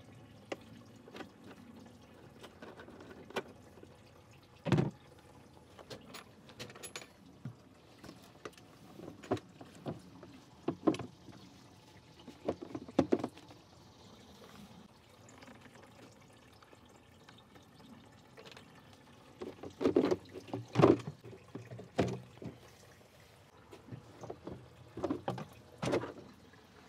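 Engine coolant draining from the disconnected lower radiator hose at the thermostat housing, a faint steady trickle, under scattered clicks, knocks and rattles of a screwdriver and plastic intake-duct parts being taken off. The loudest knocks come in a cluster about twenty seconds in.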